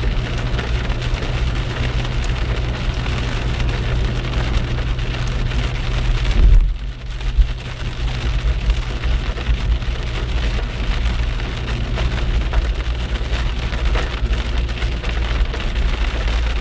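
Heavy rain hitting a moving car, heard from inside the cabin, over a steady low hum of engine and tyres on the wet road. A short loud bump comes about halfway through.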